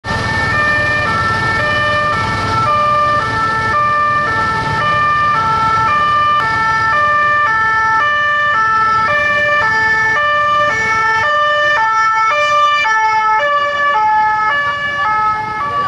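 French two-tone police siren on an unmarked Citroën police car, alternating steadily between a high and a low note, each held about half a second. A steady high tone runs alongside it.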